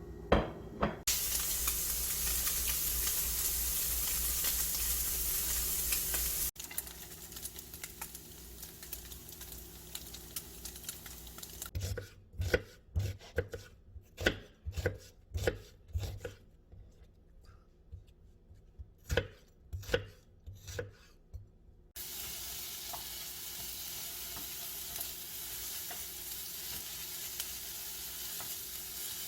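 Food sizzling in a frying pan, then a run of irregular sharp knocks like a knife chopping on a cutting board, then sizzling again from about two-thirds of the way in.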